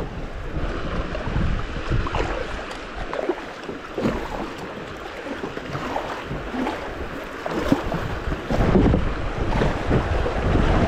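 Creek water splashing and rushing around a kayak, with wind buffeting the microphone, louder near the end.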